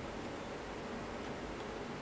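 Steady hiss of background noise, with no distinct knocks or clicks.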